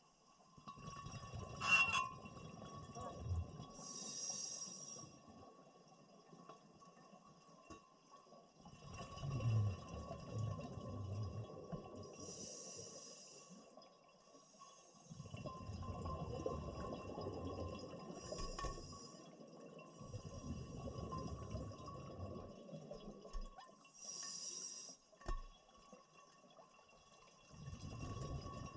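Scuba diver breathing underwater through a regulator: rumbling, gurgling bursts of exhaled bubbles alternate with short high hisses of air, in a slow repeating cycle every several seconds.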